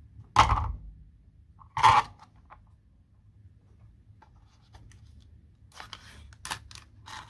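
Two loud knocks about a second and a half apart near the start, then crinkling and tearing in the last couple of seconds as a foil seal is peeled off a plastic cup.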